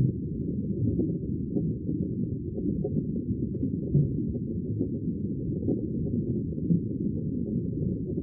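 Sea water rushing as a low, muffled, steady rumble, with no hiss or splash above it.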